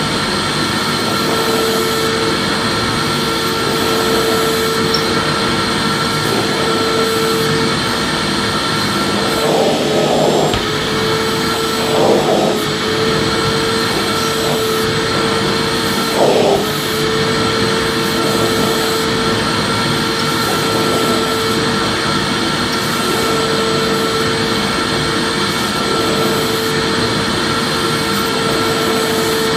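Vacuum cleaner motor running steadily: a constant whine over a broad rush of air, with three short flutters in the sound about ten, twelve and sixteen seconds in.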